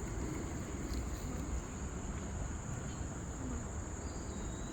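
Steady high-pitched chorus of insects droning without a break, over a low rumble of background noise.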